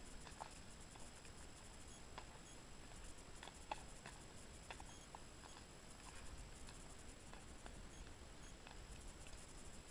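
Faint, irregular clicks and light patter over near silence, from a horse walking on a forest trail.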